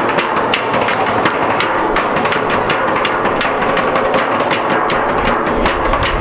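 Several people drumming on metal oil barrels with sticks and hands: many fast, overlapping strikes in a steady, loud beat.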